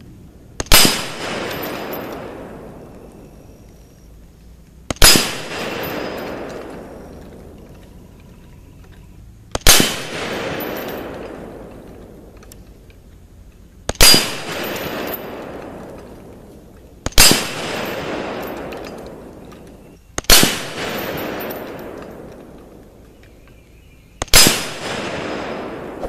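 DSA SA58 FAL battle rifle in 7.62x51mm NATO firing seven single semi-automatic shots, about three to five seconds apart. Each loud shot is followed by a long echo that dies away over a second or two.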